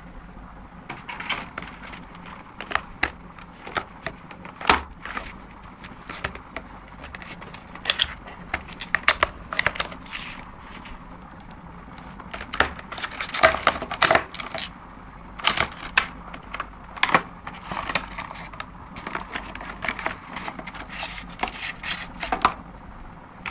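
A cardboard box and its packaging being handled and unpacked: irregular taps, clicks and crinkling rustles, some sharper knocks among them.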